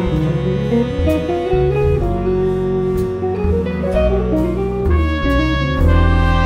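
Small jazz ensemble playing: a guitar carries a stepping melodic line over double bass, piano and drums with cymbal strikes. The full band swells near the end as the horns come in.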